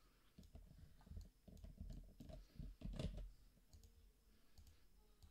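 Faint, scattered clicks of a computer mouse and keyboard, with the clearest click about three seconds in.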